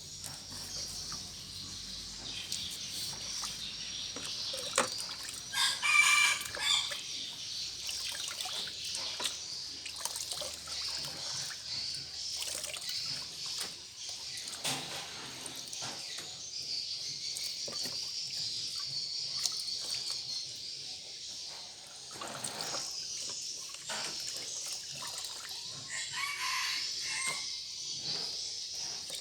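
Water trickling and splashing as a chicken is washed by hand, with a rooster crowing once about six seconds in and a shorter call near the end.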